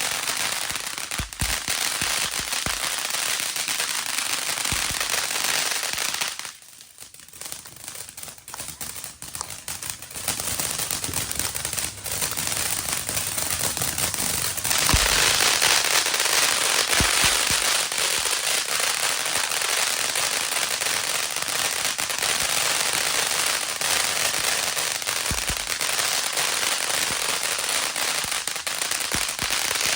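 A 500-gram 'Amazing' fountain firework from Pyro Demon Fireworks burning with a dense hiss and crackle. It falls away briefly about six to ten seconds in, then picks up again, louder and brighter from about fifteen seconds on.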